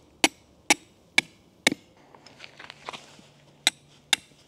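A 4 lb sledgehammer driving a tent stake into the ground: four sharp strikes about half a second apart, a few lighter taps, then two more sharp strikes near the end.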